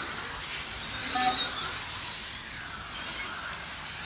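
Electric 1/10-scale RC touring car with a 4.5-turn modified brushless motor running laps on an asphalt track: a hissing whine of motor, drivetrain and tyres, loudest about a second in.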